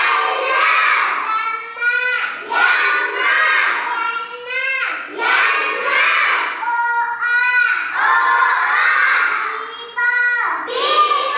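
A child's high-pitched voice sounding out and reading short-'a' three-letter words in a steady sing-song chant, one syllable after another about once a second.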